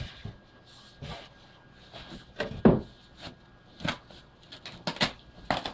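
Synthesizer packaging being handled: plastic wrap and styrofoam blocks crackling and knocking in short, irregular bursts.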